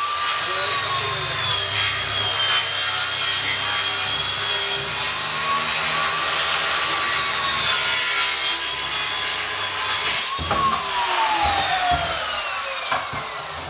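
Electric power saw running steadily while cutting through wood. About ten seconds in it is switched off and its whine falls in pitch as it winds down.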